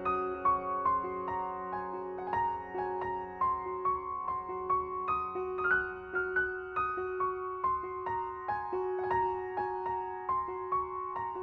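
Background music: a soft piano melody of evenly paced notes over held chords.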